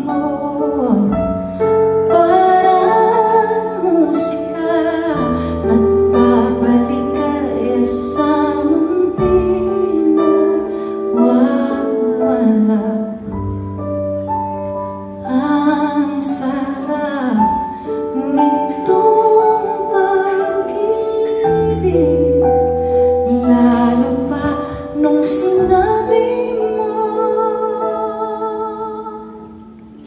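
A woman singing a slow song with piano accompaniment, her held notes wavering with vibrato; the music fades down near the end.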